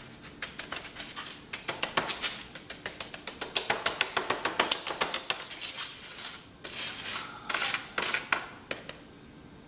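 Wooden stick tapping quickly on a plastic paver mold filled with wet concrete, about five or six light taps a second. The taps stop about seven seconds in, and a few single taps follow.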